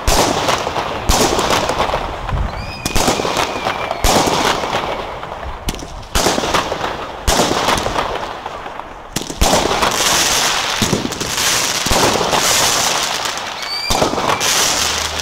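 Comet Rockstar (Airwolf) 12-shot crackling firework battery firing. A thump roughly every one to two seconds is each followed by a dense crackle as the stars burst, and the crackles run into one another.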